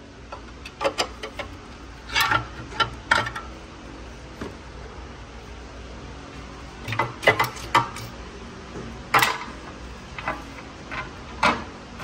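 Steel pry bar knocking and scraping against the 2016 Prius engine's timing chain cover as the cover is pried loose: irregular sharp metal clinks and clunks, with a cluster about two to three seconds in and another about seven to eight seconds in.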